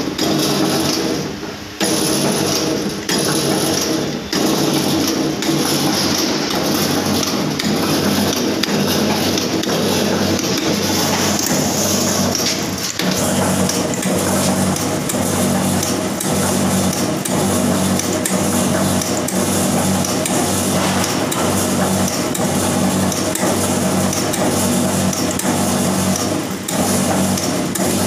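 Carry-bag punching press running under its 2 hp electric motor, the belt-driven flywheel giving a steady hum while the punch strikes over and over in a regular rhythm, about once a second.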